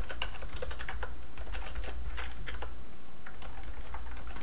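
Typing on a computer keyboard: a fast, uneven run of key clicks, over a steady low hum.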